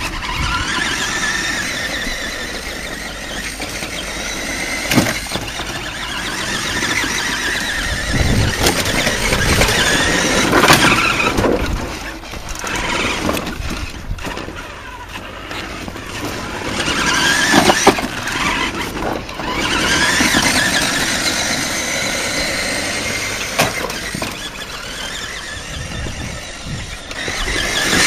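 Electric motor and gears of a radio-controlled Hummer H2 model truck whining, rising and falling in pitch as it speeds up and slows, with a few sharp knocks.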